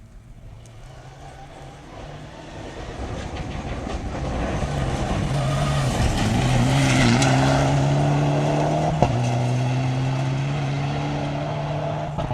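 Rally car approaching on a gravel stage, its engine getting steadily louder. It passes close about seven seconds in, with a brief lift and a rising note as it accelerates, then pulls away holding a steady note. There is one sharp crack about nine seconds in.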